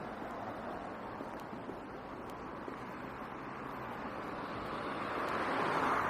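Steady road traffic noise, swelling louder near the end as a vehicle passes close by.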